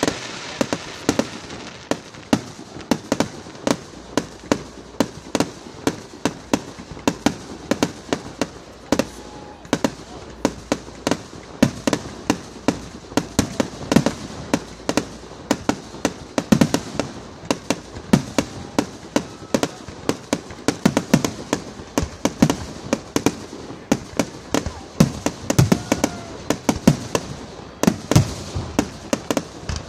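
Aerial fireworks display: shells bursting overhead in a rapid, irregular series of sharp bangs, often two or three a second.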